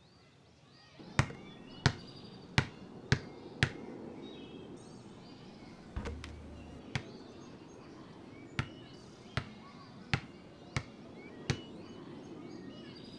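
Basketball bounced on a paved court: five quick bounces starting about a second in, then after a short pause about seven more, spaced further apart and less evenly.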